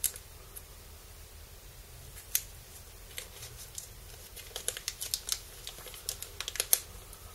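Small clear plastic bag crinkling and clicking in the fingers as it is handled and opened, with scattered crackles at first and a quick run of them in the second half.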